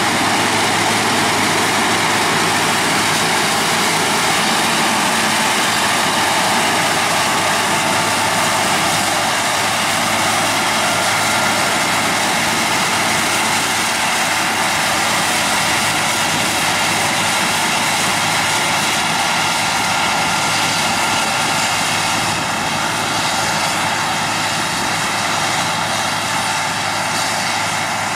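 John Deere S680 combine harvester running while harvesting: a loud, steady mechanical drone with a faint whine, easing slightly near the end.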